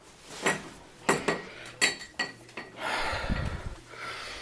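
A few sharp clinks and knocks of hard household objects being handled, about five in the first two seconds, followed about three seconds in by a rustling noise with a dull bump.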